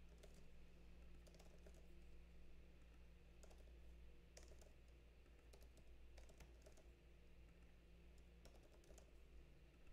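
Faint typing on a computer keyboard: scattered key clicks over a low steady hum.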